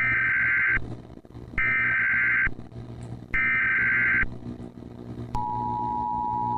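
Emergency Alert System broadcast signal. Three bursts of warbling digital data tones (the SAME header) sound a little under a second each with short gaps between them. About five seconds in, the steady two-tone EAS attention signal starts, a harsh dual tone just under 1 kHz, over a low hum.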